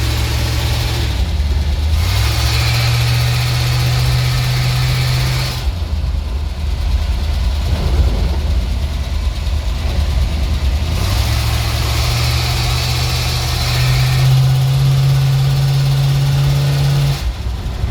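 ZIL truck's petrol engine running, its speed raised and held for a few seconds, then dropping back to idle about six seconds in. It is raised again about eleven seconds in, climbs a little higher, and falls back to idle near the end.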